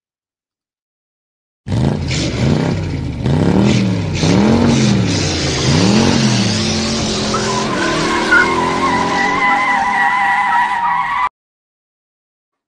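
Car engine revving up and down several times, then held steady while the tyres squeal, ending in a sudden cut.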